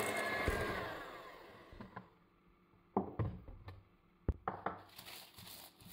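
Greasing parchment paper with butter: soft rubbing and rustling of paper on the countertop, with several sharp knocks and taps around the middle. A steady hum fades out over the first second or so.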